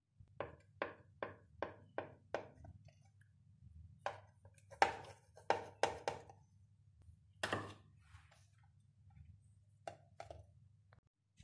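A kitchen knife cutting through slices of soft white sandwich bread on a ceramic plate, the blade knocking the plate with each stroke. First comes a run of six evenly spaced strokes, then irregular ones, with the loudest a little past halfway. A faint low hum sits underneath.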